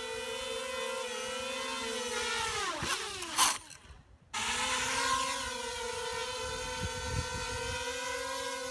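Quadcopter's electric motors and propellers buzzing steadily. About three seconds in, the buzz drops in pitch as the motors slow, there is one loud sharp knock and a moment of silence, and then the buzz starts again and holds steady.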